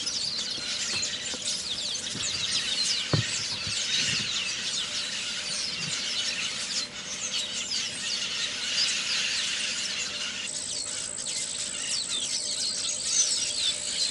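Dense chorus of many overlapping, high-pitched squeaky bird calls, with one sharp knock about three seconds in and a steady high-pitched whine joining about ten seconds in.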